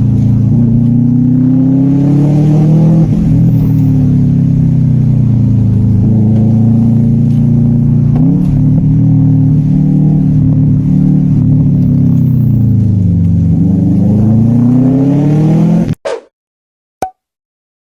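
Subaru GT 2000's engine under hard acceleration, heard from inside the car: the revs climb and fall several times, with sudden drops in pitch where gears change. The sound cuts off abruptly near the end, followed by a few short clicks.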